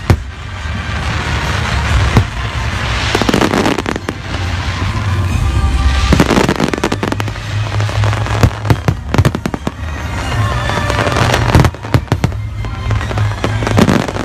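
Aerial fireworks display: shells bursting in quick, sharp bangs, with dense crackling swells about three and six seconds in.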